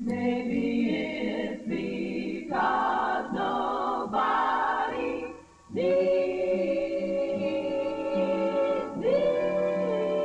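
Female vocal quartet singing in close harmony, a run of short phrases followed by long held chords from about six seconds in.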